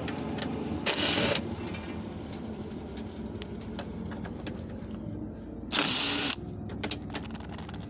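Cordless drill-driver spinning briefly twice, about a second in and again near six seconds in, backing out the door latch's T30 Torx screws. Light clicks and handling noise come between the two runs.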